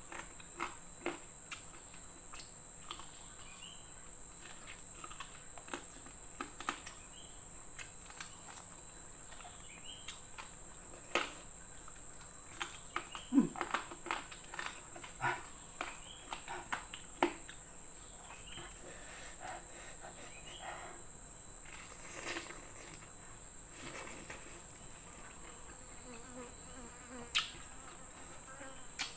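Close-up eating sounds: chewing with short wet clicks and smacks at irregular intervals, over a steady high-pitched insect drone.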